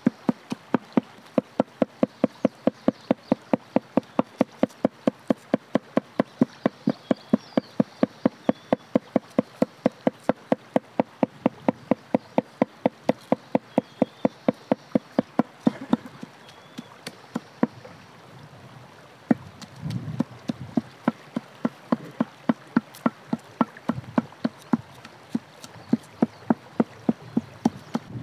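Meat cleaver chopping raw chicken into mince on a wooden tree-stump block: rapid, even chops at about four a second, with a short pause about two-thirds of the way through before the chopping resumes.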